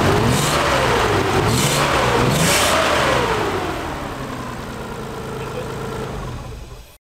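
Nissan 300ZX's VG30DE V6 running, blipped up and down a few times in the first three seconds, then settling to a steadier idle; the engine is misfiring a bit. The sound cuts off suddenly just before the end.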